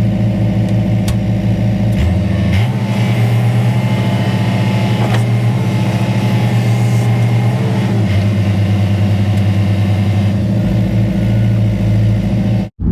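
Engine running steadily, speeding up about two seconds in and slowing back down around eight seconds; it cuts off abruptly near the end.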